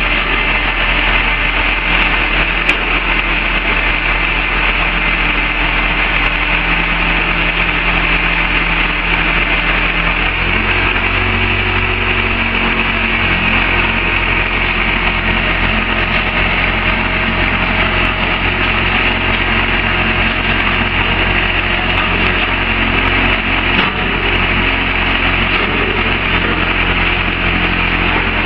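Truck-mounted auger drilling rig running steadily, its engine and hydraulic drive working the auger. The engine note changes about ten seconds in.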